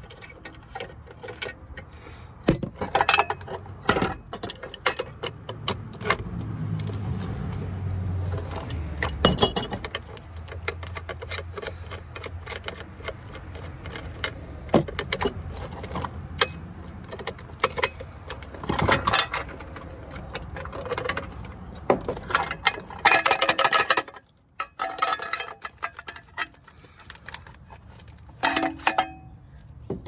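Small metal parts clinking and clattering as cell-tower antenna connectors and hardware are handled and taken apart, with some pieces ringing briefly. A low hum runs for several seconds in the first half.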